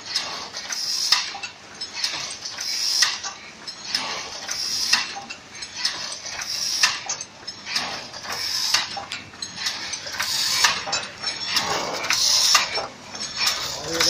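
Automatic crimped wire mesh weaving machine running, a metallic clatter that repeats about every two seconds with rapid clicking between the beats.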